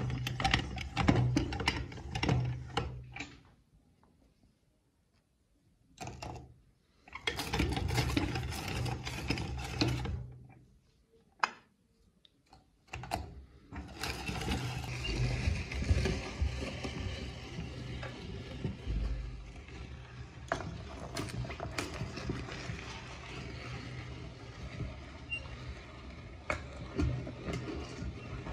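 Electric meat grinder running, its auger crushing and grinding a chocolate-filled wafer ice cream cone, with a crackling crunch over the motor's steady hum. It runs for a few seconds, stops, runs again, stops, then runs steadily from about halfway on.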